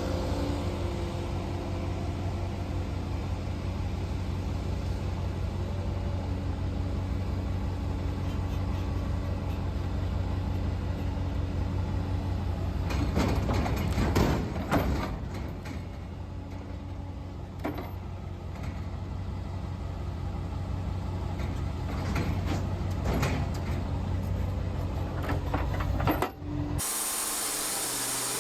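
An engine running steadily, with a few louder hissing or clattering bursts midway, cut off suddenly near the end by music.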